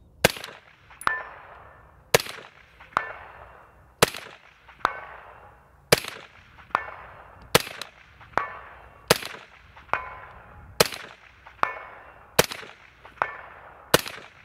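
Suppressed AR-15 chambered in 6.5 Grendel firing a string of nine shots at a steady pace, one every couple of seconds. A little under a second after each shot comes a ringing clang: the bullet striking a steel target 200 yards downrange.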